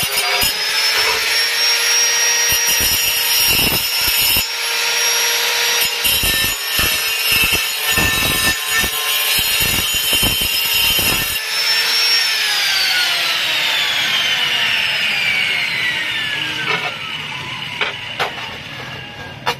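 Hand-held angle grinder cutting porcelain tile: a steady high motor whine with the gritty noise of the disc biting into the tile. About twelve seconds in the grinder is switched off and its whine falls steadily in pitch as the disc spins down, with a few knocks of tile pieces being handled near the end.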